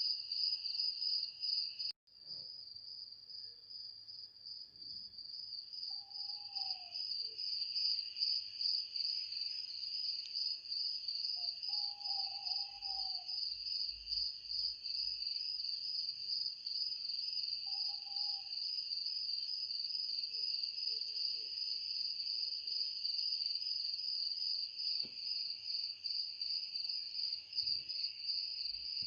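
Crickets chirring in a steady chorus, a fast high-pitched pulsing trill with a second lower band beneath it, cutting out for an instant about two seconds in. A few faint short calls sound in the background.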